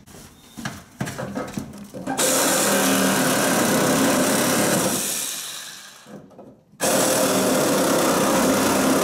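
Cordless reciprocating saw cutting through copper supply pipes, in two runs: it starts suddenly about two seconds in and dies away around the middle, then starts again about a second later.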